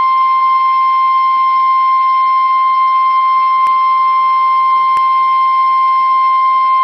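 NOAA Weather Radio 1050 Hz warning alarm tone: a single loud, steady, unbroken beep. It is sent during the weekly test of the warning-alarm feature that switches on specially built weather receivers.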